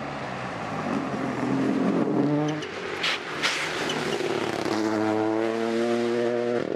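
Rally car engine under hard acceleration: the note climbs, drops at a gear change, and a sharp crack comes about three seconds in. Near the end the engine holds a steady high-revving note.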